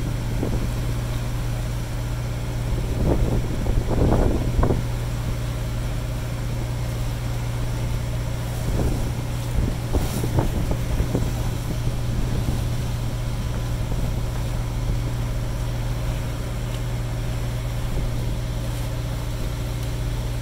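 The SeaPiper 35 trawler's inboard engine running steadily under way, a constant low drone, over the rush of water and wind. A few louder rushing surges come in about three to five seconds in and again around nine to eleven seconds.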